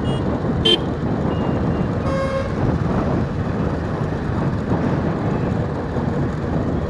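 Steady wind and road noise from a moving motorcycle in traffic. A short sharp beep sounds just under a second in, and a vehicle horn honks once for about half a second around two seconds in.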